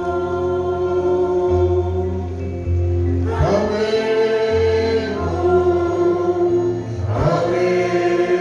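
A slow gospel appeal song sung by a choir over a held low accompaniment, with long sustained notes. New phrases begin about three and seven seconds in.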